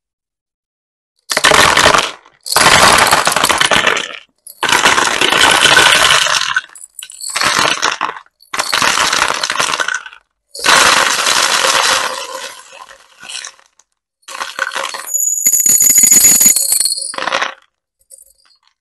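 Small plastic beads poured from a glass jar into a plastic tray: a dense rattling clatter in about seven pours with short pauses between them. The last pour carries a bright, ringing glassy clink.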